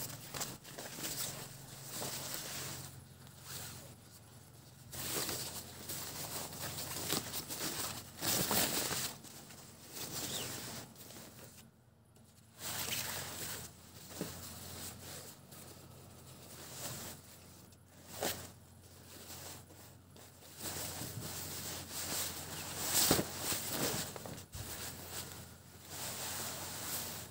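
Lengths of printed cloth rustling and swishing as they are unfolded, shaken out and laid down by hand, in irregular bursts.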